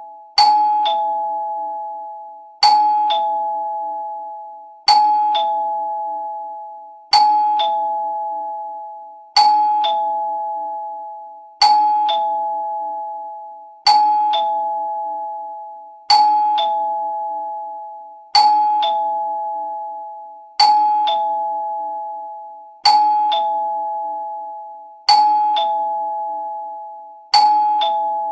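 Two-tone doorbell chime ringing over and over, a higher note followed about half a second later by a lower one. The pair repeats about every two and a quarter seconds, and each ring dies away before the next.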